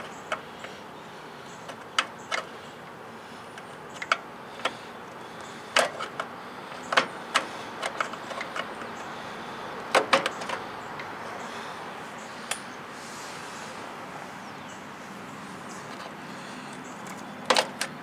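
Screwdriver clicking and scraping against small screws and sheet metal inside an RV furnace, in scattered taps a second or two apart, some in quick pairs, loudest about ten seconds in and near the end.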